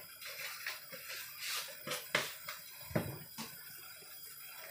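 Soup broth of lemongrass and galangal at a rolling boil in a stainless steel saucepan, bubbling steadily with irregular small pops and clicks.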